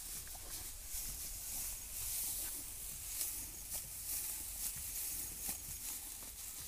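A cow feeding on dry straw: the straw rustles and crackles as it is pulled and chewed, with many short, irregular crackles over a steady hiss.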